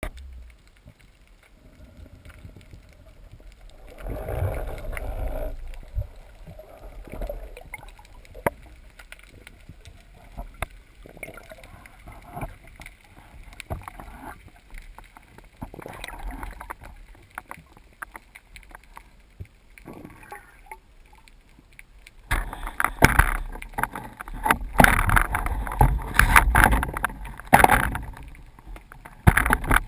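Muffled underwater sound heard through a camera's waterproof housing as a freediver swims down to a rocky bottom: scattered clicks and taps over a low rumble of moving water. A louder burst comes about four seconds in, and in the last seven seconds the rumbling, knocking and bubbling grow much louder as the diver moves in close against the rock.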